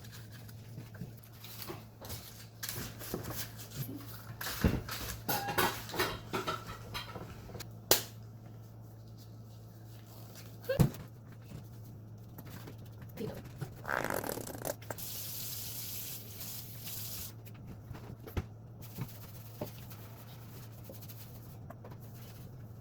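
Paper cupcake liners rustling as they are handled and set into a cupcake tin, with scattered sharp clicks and knocks, over a steady low hum. A brief hiss comes a little after the middle.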